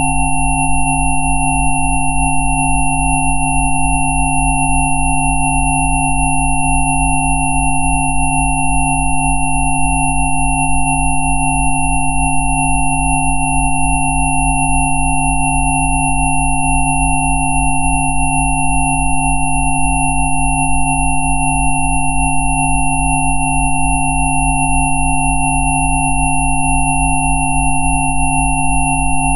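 Synthesized sine tones sounding together as a steady electronic drone, presented as Rife frequencies. The tones range from a high whine down to a deep hum, and the lowest of them pulses fast.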